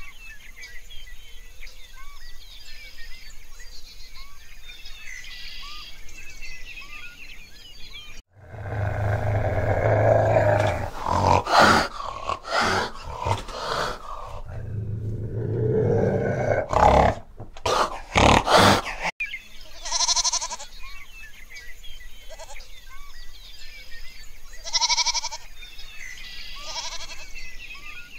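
Birds and insects chirping faintly for about eight seconds, then a loud, long, low-pitched animal call in several parts lasting about ten seconds, followed by several short higher calls a few seconds apart.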